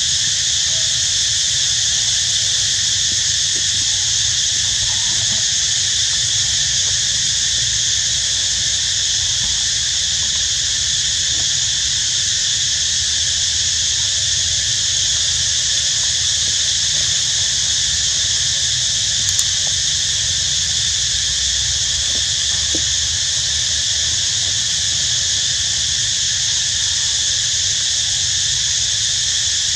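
Steady chorus of forest insects, several high buzzing pitches held without a break, over a low rumble.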